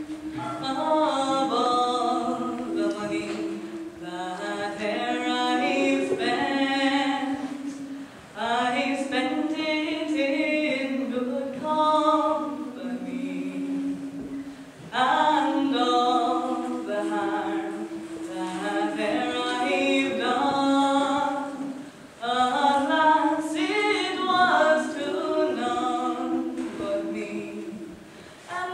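Girls' choir singing a cappella in several parts, with a low note held steady under the moving upper voices. The singing comes in phrases of several seconds, with short breaks between them.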